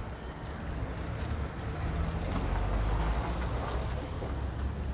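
Street traffic: a motor vehicle's engine and road noise, swelling to its loudest about three seconds in and then easing off.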